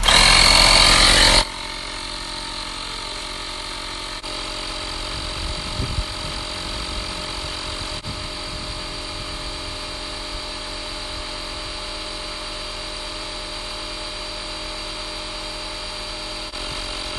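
Portable 12-volt tire inflator compressor running steadily as it pumps a car tire up toward a preset 35 PSI, with a high steady whine over its motor hum. It is loudest for about the first second and a half, then settles to an even run.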